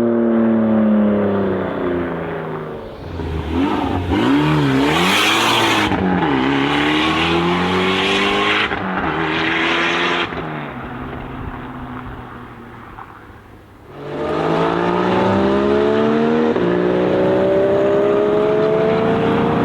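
Tuned BMW M3 Touring (G81)'s twin-turbo straight-six running hard: its note falls away, swings up and down with several revs, and fades, then about fourteen seconds in it comes back loud and climbs steadily in pitch under full acceleration.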